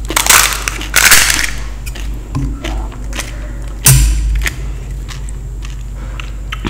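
Close-miked eating: a mouth biting and crushing crisp fried Indian street snacks, with three loud crunches (near the start, about a second in, and about four seconds in) and small chewing clicks between them.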